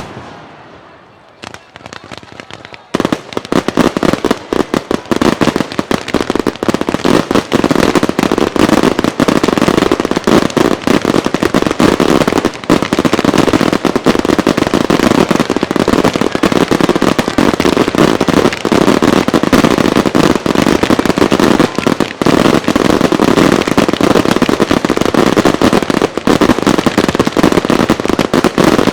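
Fireworks going off in a dense, continuous barrage of rapid bangs and crackling, starting about three seconds in after an earlier burst dies away.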